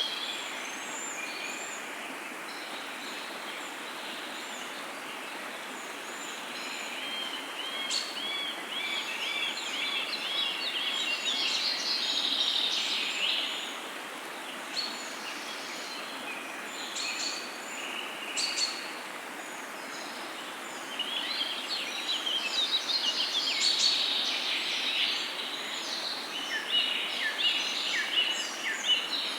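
Several songbirds singing, with trills and repeated chirping phrases that come in bouts, busiest about a quarter of the way in and again through the last third. Underneath is a steady rush of running water.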